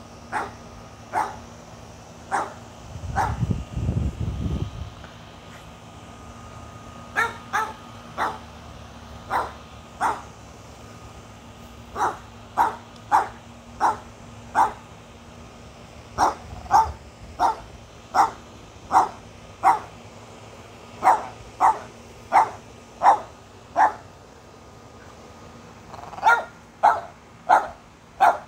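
A dog barking repeatedly: sharp single barks in quick runs, often about half a second apart, with short pauses between runs. A brief low rumble comes about three seconds in.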